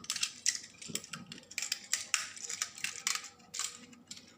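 Plastic parts of a Tobot transforming robot-car toy clicking and clattering as it is handled and folded into shape: a quick, irregular run of small clicks.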